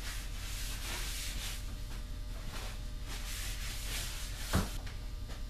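A cloth wiping sanding dust off a bare maple rifle stock: soft, repeated rubbing swishes over a steady low electrical hum, with a single knock about four and a half seconds in.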